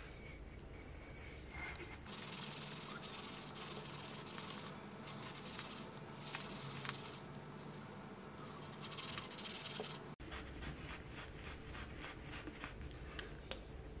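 Steel wool scrubbing the outside of an aluminium bottle to polish it: a harsh hissing scrape in long strokes with short pauses, then a run of short, quick strokes after about ten seconds.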